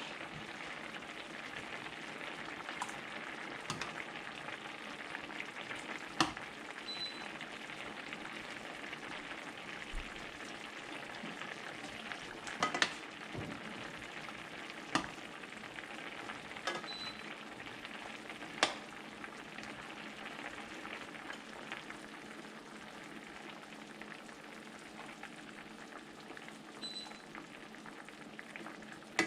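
Squid adobo sizzling steadily in a cooking pan, with a few sharp clicks scattered through.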